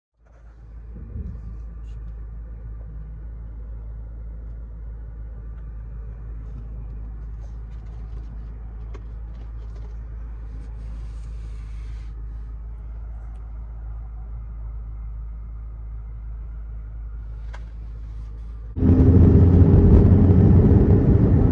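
Steady low rumble of a car driving, heard from inside the cabin. About nineteen seconds in it turns abruptly much louder and noisier.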